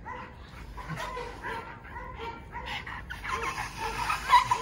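Two excited pit bulls yipping and whining in quick, repeated short cries, with a louder, rougher burst of sound near the end.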